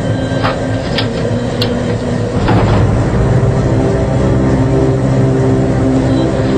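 Diesel locomotive engine running with a steady low drone, louder from about two and a half seconds in, with a few sharp clicks in the first seconds.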